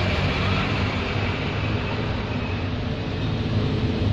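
A motor running steadily, giving a low, even hum with a hiss over it.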